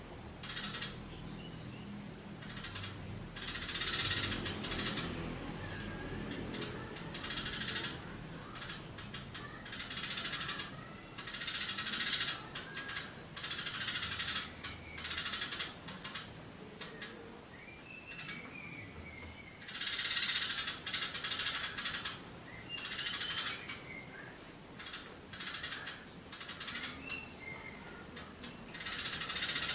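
Eurasian tree sparrow (burung gereja) chattering in long runs of rapid chirps, each run lasting about a second, repeated many times with short gaps between.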